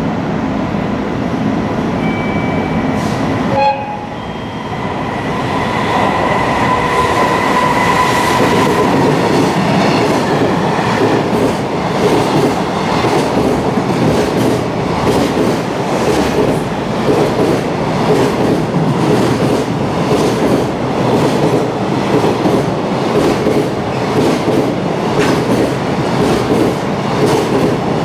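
Long freight train passing close by: a held high tone for a few seconds as the locomotive comes through, then a long string of wagons clattering over the rail joints in a fast, steady rhythm.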